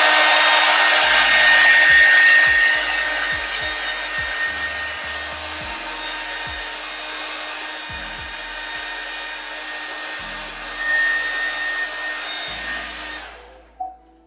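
Handheld hair dryer running: a steady rush of air with a high motor whine. It is loudest for the first two seconds or so, then is switched off near the end and winds down.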